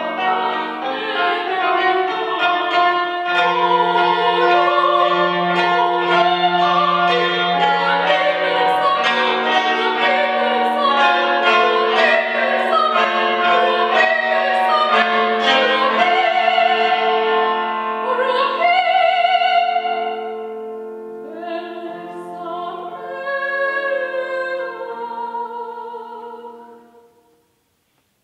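A woman singing in classical style with vibrato, accompanied by a cimbalom whose hammer-struck strings ring under the voice. The music thins out and stops about a second before the end.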